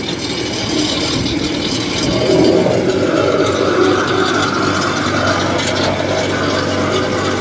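Tracked carrier's engine running under load as it crawls up a bank, with the mechanical clatter of its crawler tracks and running gear, growing louder about two seconds in.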